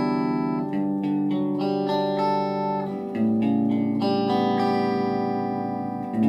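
Electric guitar played on the clean channel of a BOSS Nextone Stage amplifier: picked chords and single notes left ringing, with a new chord struck about three seconds in.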